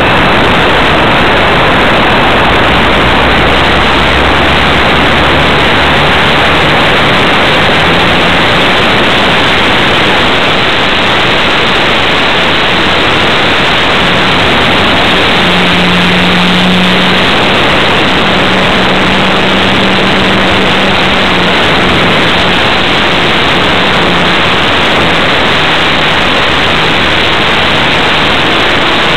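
Radio-controlled model airplane's motor and propeller heard from on board, running steadily through the take-off run and climb. The sound is a loud, dense rushing noise with a faint low hum that shifts in pitch a few times.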